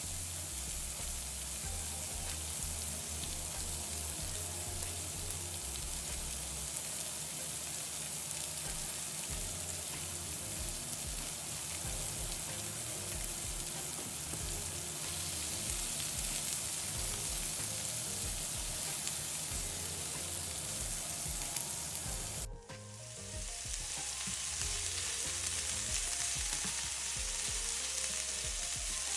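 Food frying in oil in a hot pan, a steady sizzle, with a brief break about three-quarters of the way through before the sizzle resumes.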